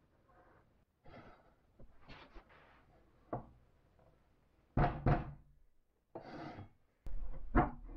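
Plywood pieces being shifted and set against each other on a plywood sled base: a string of knocks and short sliding scrapes, loudest about five seconds in and near the end.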